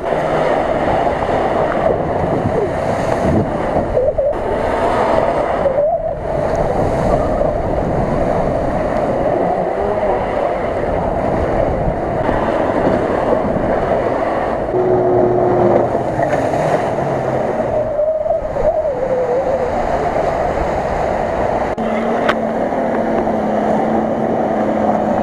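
Off-road 4x4 engines running under load while tyres churn through deep mud and water, with splashing.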